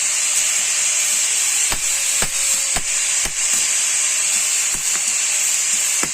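Hand hammer striking steel, irregular blows, often about half a second apart, as a grass-cutter blade is forged. A steady high hiss runs underneath and is the loudest part.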